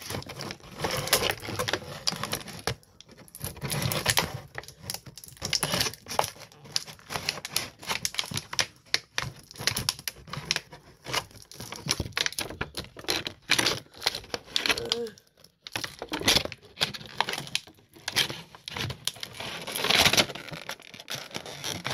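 A plastic action figure and its packaging being handled: a long run of clicks, taps and crinkles with a few short pauses.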